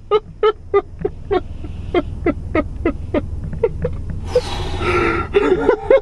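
A man laughing hard in a steady run of short breathy bursts, about three a second, broken by a longer breathy rush about four seconds in. A low rumble runs underneath.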